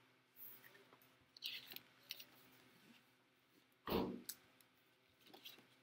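Pages of a picture book being handled and turned: soft paper rustles and a click, then a louder flap of a page turning about four seconds in.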